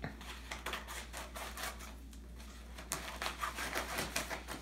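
Scissors cutting through a brown paper bubble-wrap mailer: a run of many short, irregular snips and crinkles.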